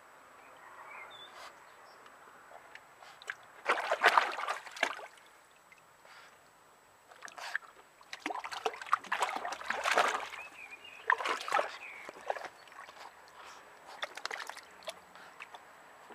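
A small dog pawing and wading in shallow water in a plastic paddling pool, splashing in bursts: a loud spell about four seconds in, a longer run of splashes from about eight to ten seconds, more just after eleven, and a few lighter splashes near the end.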